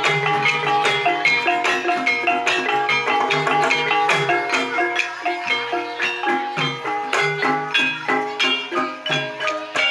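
Banyumasan gending played live: an ensemble of tuned mallet-struck instruments in fast interlocking runs over a steady low hand-drum pulse.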